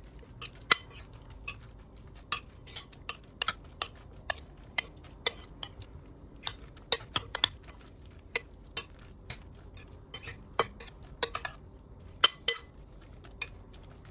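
Metal spoon stirring chopped cabbage and raw egg in a glass bowl, knocking against the glass in sharp, irregular clinks about twice a second.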